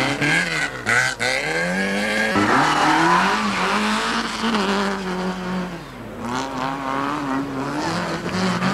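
A small hatchback rally car's engine revving hard on a dirt course, its pitch repeatedly climbing and falling as the driver accelerates, shifts and lifts through the corners. The revs break off sharply about two and a half seconds in, and dip again about six seconds in.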